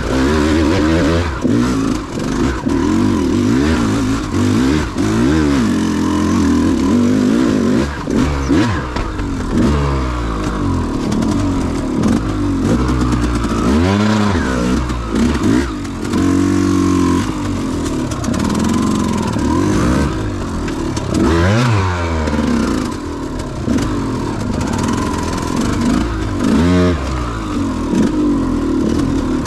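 KTM 200 XC-W two-stroke dirt bike engine revving up and down on constantly changing throttle while riding a trail. The pitch rises and falls every second or two and drops off briefly twice, around the middle and again about two-thirds of the way through.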